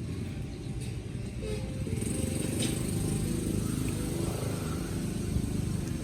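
A small engine running, growing louder about two seconds in.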